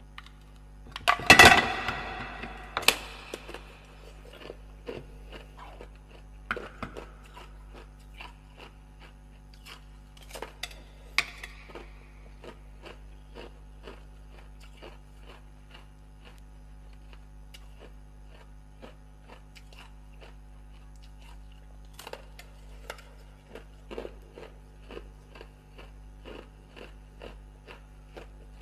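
Ice being bitten and chewed close to the microphone: a loud crack about a second in, further sharp bites now and then, and many small crunching clicks between them, over a steady electrical hum.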